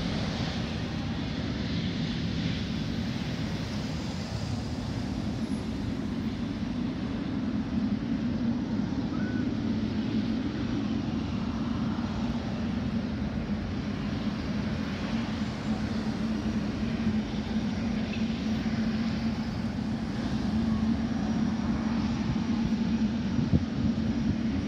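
Steady low rumble of road traffic and distant airliner jet engines at an airport, with a constant low hum.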